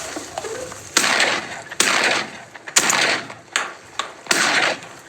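Shotgun shots: a quick volley of four or five sharp bangs, roughly a second apart, each trailing off over about half a second.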